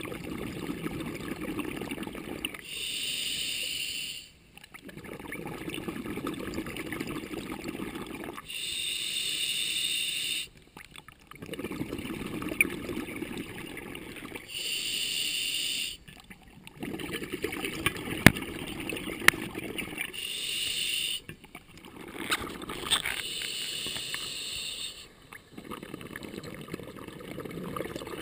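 Scuba diver breathing through a regulator underwater, about five slow breaths: each is a hissing inhale of a second or two through the regulator, then a longer exhale of bubbles rumbling out. A few sharp clicks come partway through.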